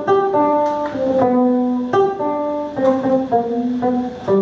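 Acoustic guitar playing a tango interlude between sung lines: a slow melody of single plucked notes, about two a second, over low bass notes.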